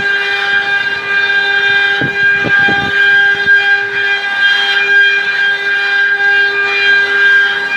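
CNC machine spindle running with a steady, unchanging whine over a haze of cutting noise as it carves a ring, with a few short low knocks about two to three seconds in.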